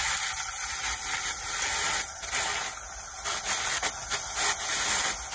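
Chicken wings deep-frying in a pot of hot oil: a steady sizzling hiss with faint scattered crackles as more wings are lowered into the oil.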